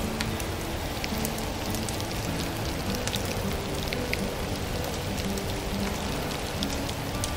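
Wood fire crackling in a fireplace: a steady hiss with scattered sharp pops, under soft background music of slow held notes.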